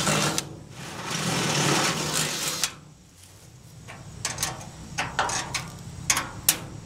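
Power drill running, boring new holes through the sheet-metal windrow deflector of a hay mower. It runs steadily for about two and a half seconds with a brief break near the start, then stops, followed by a scatter of sharp metal clicks and knocks.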